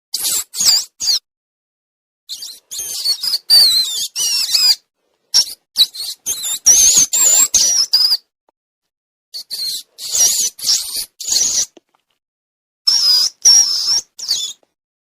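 Rodent squeaking: five bursts of rapid, high-pitched squeaks with wavering pitch. Each burst lasts one to three seconds, and they are separated by abrupt, completely silent gaps, typical of an edited squeak sound effect.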